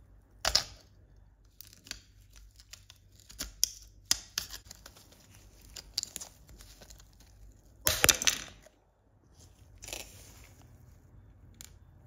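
Short sharp clicks, scrapes and crackling from small hand work, loudest about half a second in and again around eight seconds in.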